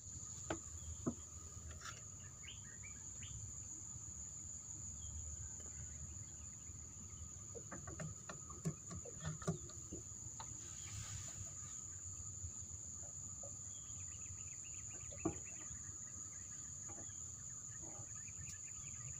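Insects trilling as one steady, unbroken high-pitched drone, with a low background rumble and a few faint scattered clicks.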